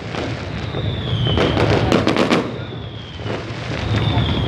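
Fireworks going off in rapid pops and bangs, with three high whistling tones that each fall slightly in pitch, over the steady noise of a large street crowd.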